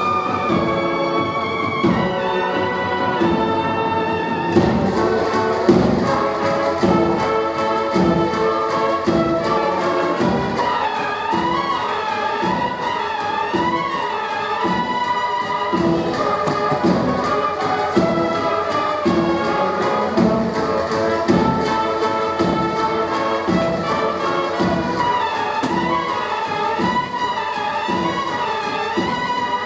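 Spanish bugle and drum band (cornetas y tambores) playing: a melody on bugles over sustained brass chords, with the drums coming in about four seconds in and beating steadily under it.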